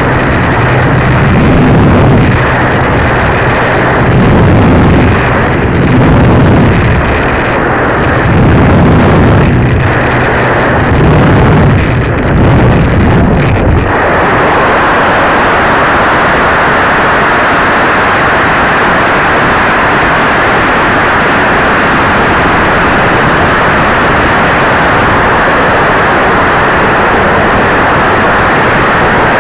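Electric motor and propeller of a ParkZone T-28 RC plane running with wind buffeting the onboard microphone, swelling and fading every couple of seconds. About 14 seconds in, the motor sound cuts off abruptly as the plane comes down, and a steady hiss takes over.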